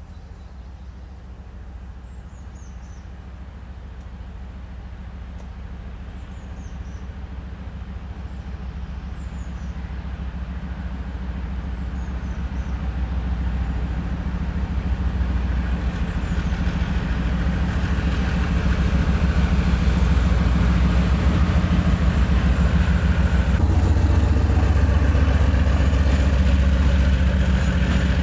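M62 diesel locomotive running light, its two-stroke V12 diesel engine's low, steady drone growing louder over about twenty seconds as it approaches, then holding loud, with a sudden change in the engine sound about three-quarters of the way through. Birds chirp faintly at first.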